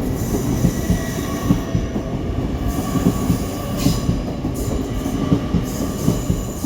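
Class 800 passenger train rolling along the platform: a steady rumble of wheels on rail with irregular knocks and a faint high wheel squeal.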